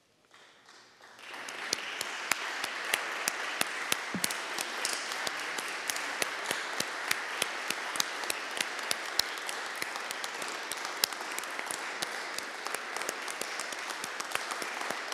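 Congregation applauding: the clapping swells in about a second in and then holds steady, with many sharp single claps standing out above the crowd's clapping.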